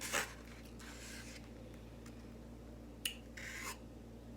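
A few short scraping rubs of a fork working food on a plate or container, with one sharp click about three seconds in.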